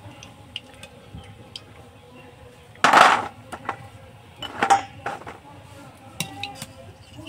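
Crisp fried dough sticks tipped from a wire strainer into a stainless-steel bowl, clattering against the metal: one loud rattle about three seconds in and a second, shorter rattle a second and a half later, with light metal clinks between.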